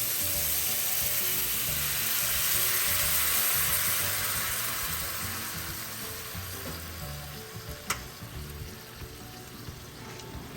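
Onion, garlic and ginger sauce sizzling in a hot pan just after a cup of water has gone in, the sizzle fading in the second half as the liquid settles. A single sharp click about eight seconds in.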